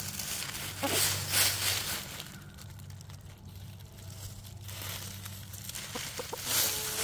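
Dry leaves rustling and crunching in two bursts, one about a second in and another near the end, as they are scratched or trodden through.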